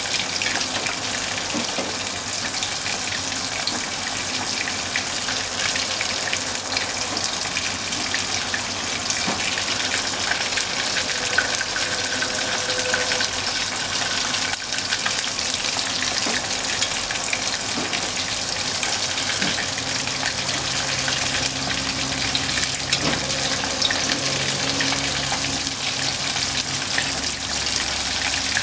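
Bone-in beef short ribs deep-frying in a pot of hot oil: a steady, dense sizzle with fine crackling.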